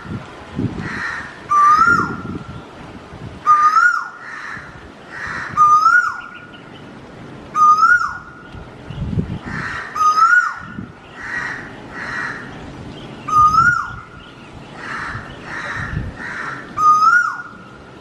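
Male Asian koel calling again and again, about every two seconds: each call rises in pitch and drops sharply at the end. Fainter calls come in between.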